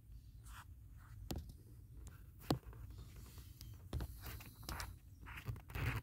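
Handling noise around a car's open glovebox and cabin air filter housing: a few sharp clicks and knocks of plastic trim, the sharpest about two and a half seconds in, with brief rustling near the end.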